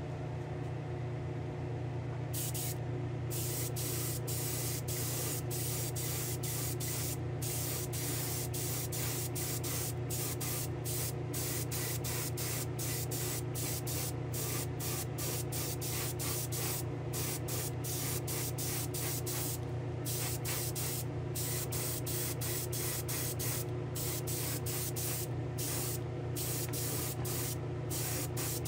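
Airbrush spraying 2K urethane clear coat in short hissing bursts, about two a second, starting about two seconds in, over a steady low hum.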